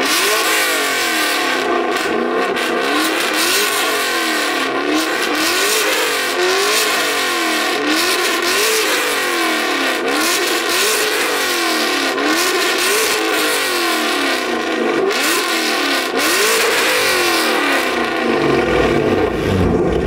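Car engine revved over and over through a loud exhaust, about once a second, its pitch climbing and dropping with each rev. Near the end it settles to a lower rumble.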